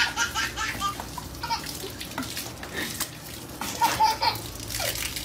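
Laughter in short bursts, with loud bursts about four seconds in, over the hiss of water running from a garden hose.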